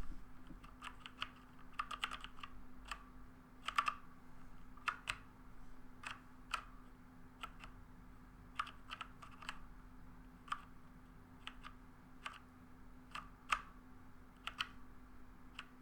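Logitech G413 mechanical keyboard with Romer-G tactile switches being pressed the way one plays a first-person shooter: quiet, irregular key clicks, some single and some in quick clusters, over a faint steady hum. To the owner these are silent switches; what is heard is fingers striking the keycaps and keys bottoming out.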